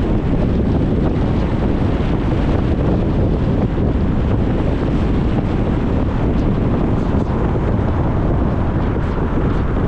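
Steady road noise of a car driving along: tyres on the road and rushing wind, an even, unbroken noise weighted toward the low end.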